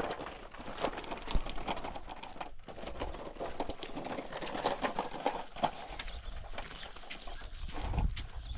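Footsteps on wet gravel and mud, an irregular run of small clicks and scuffs, with a low rumble near the end.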